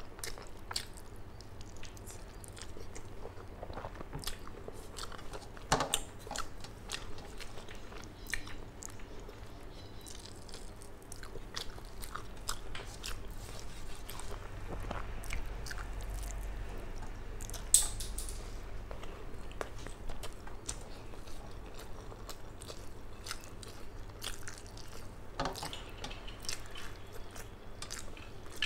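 Close-up mouth sounds of a person chewing a mouthful of rice and fish: a steady run of wet clicks and smacks. Fingers mixing rice on a steel plate add soft squishes, and a few sharper clicks stand out.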